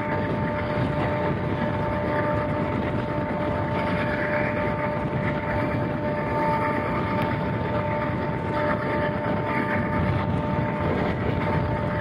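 Passenger train running at speed, heard from an open coach door: a steady rumble of wheels on rails with wind, and a steady two-note tone over it.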